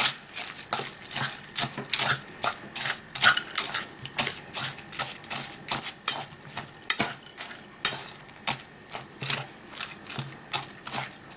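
A fork stirring and scraping a crumbly mix of mashed salmon and crushed rusks in a stainless steel bowl: quick, uneven clinks and scrapes of metal on metal, about three a second.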